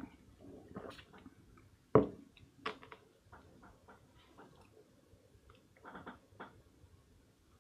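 A drinking glass set down on a desk with a sharp knock about two seconds in, among scattered light clicks and taps.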